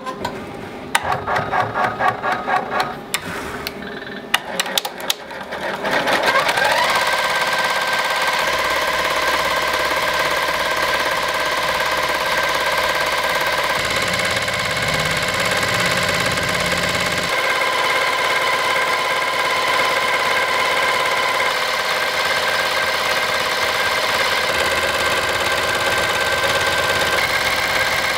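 Barudan multi-needle embroidery machine stitching: separate clacking strokes for the first few seconds, then it speeds up about six seconds in and runs on with a steady, even machine hum at full stitching speed.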